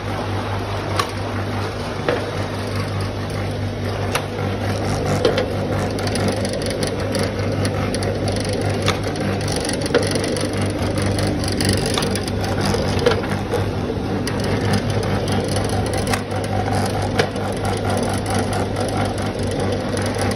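Paper pencil making machine running: a steady electric-motor hum under the turning rolling drum, with occasional sharp clicks and a light rattle of rolled pencils.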